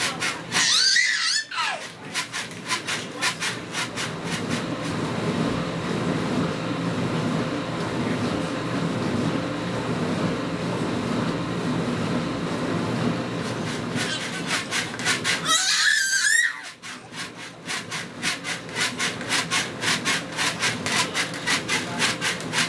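A pet making a rapid, pulsing rasp of a growl or grumble, broken by high squeaky whines near the start and again about two-thirds of the way through.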